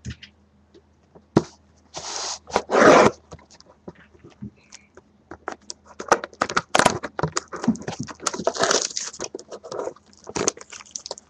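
A trading-card box being torn open and its packaging handled: two loud tearing or ripping bursts about two seconds in, then a long stretch of crinkling, rustling and scraping.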